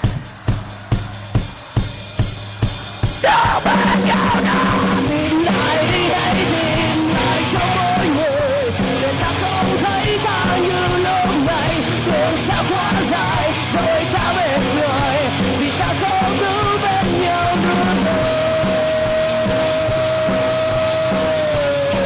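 Live rock band: evenly spaced drum hits, about two and a half a second. A little over three seconds in, the full band comes in under a yelled vocal. The male lead singer then sings over the band, holding one long note near the end that breaks into vibrato.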